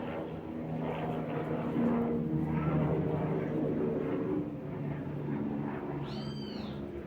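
A vehicle engine hum that swells and then fades, as of a vehicle passing, with a short high chirp near the end.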